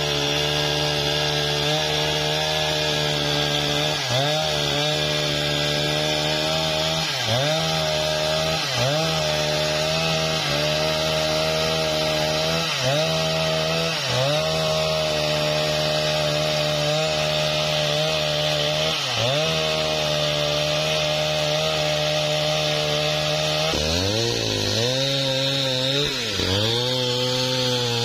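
Husqvarna 395XP two-stroke chainsaw running hard while ripping lengthwise through a sengon log. Its engine note dips briefly every few seconds as the chain loads up in the cut and recovers. About 24 seconds in, the note drops lower and wavers.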